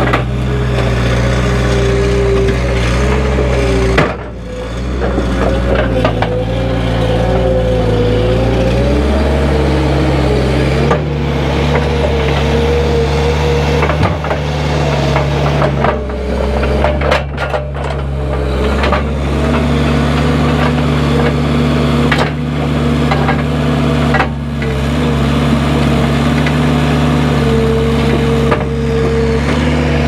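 New Holland skid steer loader's diesel engine running hard as the loader works, its pitch shifting several times as it lifts and moves logs on its forks. A few wooden knocks of logs shifting and dropping.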